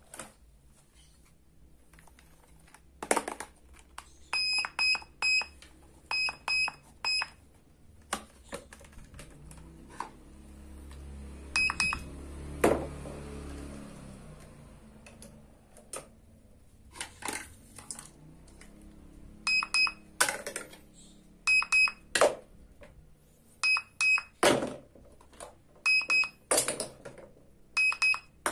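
Toy plastic cash register and its handheld barcode scanner beeping: short high electronic beeps in quick runs of two to four, repeated many times. Sharp clicks and knocks of plastic toy parts being handled fall between the runs, and a soft rushing noise swells for a few seconds around the middle.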